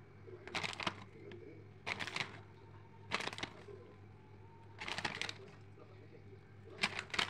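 Shredded cheese being scattered by hand over a pizza in an aluminium pan: five short rustling, crackly bursts, about one every second and a half.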